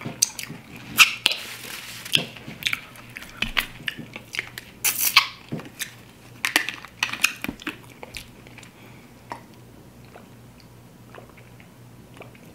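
Close-miked eating sounds: wet finger-licking, lip smacks and chewing of fried chicken wings. About halfway through a plastic water bottle is handled and its cap twisted open with a short crackle, and the sounds then thin out to a few faint ticks.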